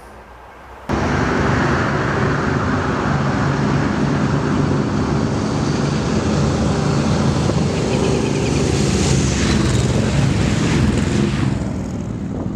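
Motorcycle engine running while riding, with steady wind rush. It cuts in suddenly about a second in, and the engine note shifts slowly with speed.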